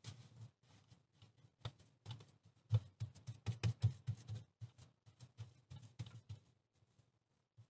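Hand patting and smoothing wet clay onto a metal barrel stove: an irregular run of short, soft slaps and pats, coming fastest and loudest about three to four seconds in and thinning out near the end.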